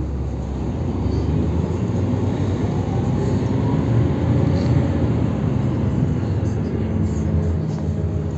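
Cabin sound of a 1998 GolAZ-AKA-5225 city bus under way: its Daimler OM 447hLA diesel engine and Voith automatic gearbox hum steadily over road noise, with a faint rising whine a couple of seconds in.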